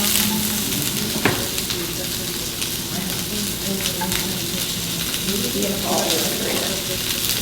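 Vegetables sizzling as they stir-fry in a hot pan, a steady hiss, with one sharp click about a second in.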